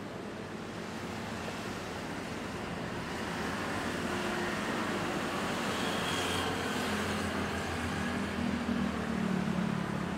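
Road traffic passing beside a sidewalk, with motorbikes among it. A vehicle goes by close about six seconds in, and a low engine hum builds near the end.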